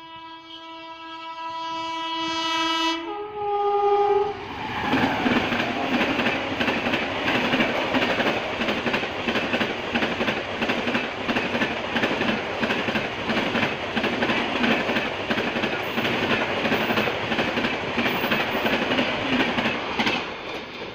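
A locomotive horn sounds for about four seconds as a high-speed LHB passenger train approaches, its pitch changing once about three seconds in. Then comes the loud rush and rattle of the LHB coaches passing close by, which drops away near the end as the last coach goes past.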